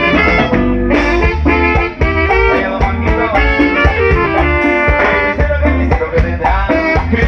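Live band playing an instrumental passage, with saxophones carrying a stepping melody over a strong bass line and a steady drum beat.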